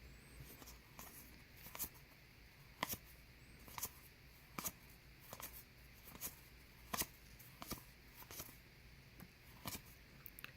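Cardboard trading cards being handled and flipped through one by one: faint sharp flicks and clicks about once a second.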